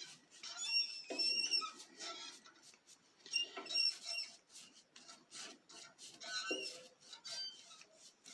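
Irregular rubbing strokes on the wood of a turned mulberry vase as lacquer sanding sealer is wiped on, several of them with short high squeaks.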